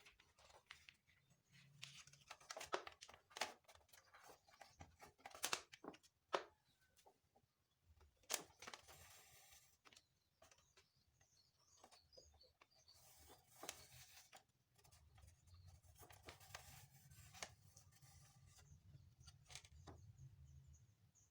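Faint, irregular clicks, taps and rustling, as of small parts or materials being handled by hand.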